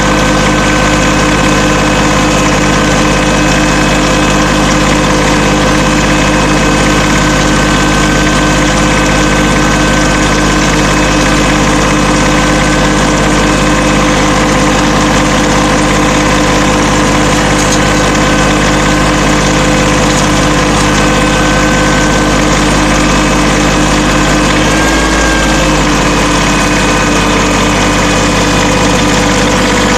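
Tractor engine running steadily while pulling a row cultivator through the soil, its pitch briefly sagging and recovering near the end.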